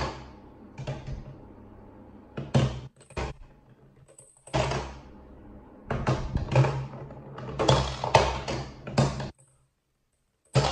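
LeapFrog Peek-A-Shoe octopus toy played with: plastic knocks and clatter as balls are handled and dropped into it, mixed with short electronic sounds from the toy's speaker that start suddenly and fade over a second or two.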